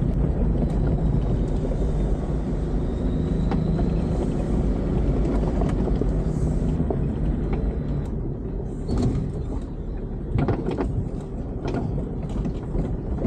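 A 4x4 driving on a rough gravel mountain track, heard from inside the cabin: a steady low rumble of engine and tyres, with a few knocks and rattles in the second half.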